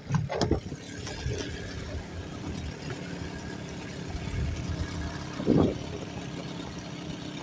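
Boat motor running steadily with a low, even hum. A short louder sound stands out about five and a half seconds in.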